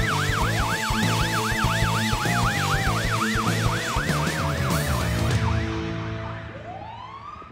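Ambulance siren on a fast yelp, about four to five sweeps a second, over a low engine rumble, fading out as the ambulance drives away. A slower rising wail starts faintly near the end.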